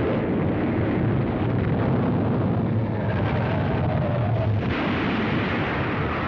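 Earthquake sound effect from a 1940s animated cartoon: a heavy, continuous rumble with crashing as the ground shakes and structures buckle.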